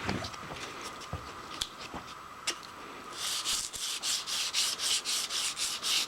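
Hand-sanding a switch plate with 280-grit sandpaper on a sanding board: a few light handling clicks, then about three seconds in, quick back-and-forth rasping strokes at about four a second.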